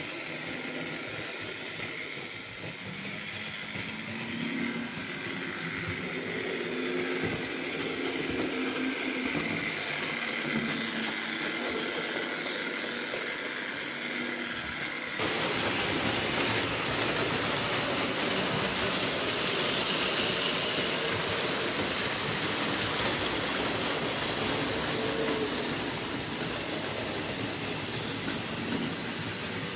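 Model train running on a model railway layout: a steady motor hum and wheel rumble on the track. About halfway through the sound changes suddenly, turning louder and brighter.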